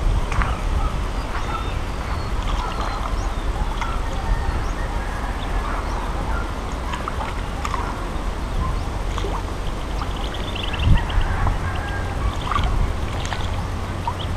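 Steady low outdoor rumble with scattered small clicks from hands handling a plastic fishing dart. A short, rapid run of high chirps comes about ten seconds in, and a single thump just before eleven seconds.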